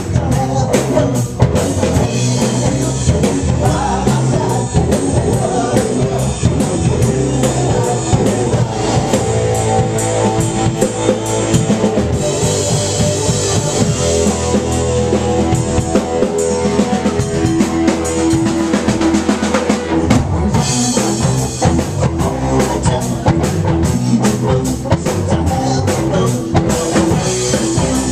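Live rock band playing: a drum kit keeping a steady beat under guitar. About halfway through, the drums ease off for several seconds under held guitar notes, then come back in.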